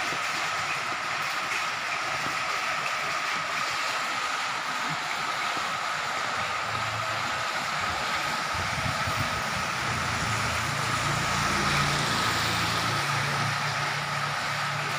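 Heavy rain falling steadily, an even hiss of rain on the wet street and roof. From about halfway through, a low engine hum of a motor vehicle joins underneath.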